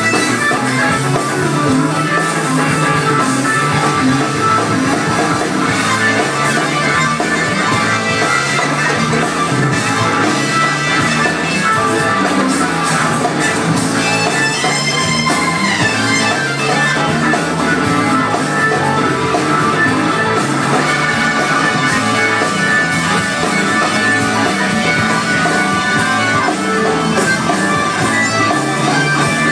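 Live rock band playing through a PA: electric guitar over drum kit, bass and keyboards, heard from within the crowd.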